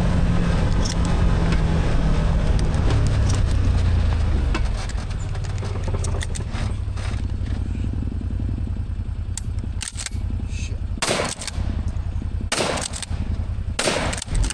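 Side-by-side UTV engine running under way over rough ground, with steady rattling and clatter. Three loud bangs come in the last few seconds.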